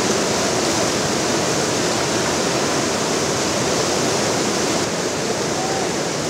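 Muddy floodwater rushing through a breach in a river embankment: a loud, steady rush of churning water, slightly lower about five seconds in.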